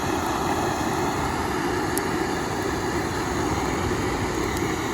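Small boat running under a NISUS 40 lb electric trolling motor: a steady, even rush of water and wind noise with no change in speed.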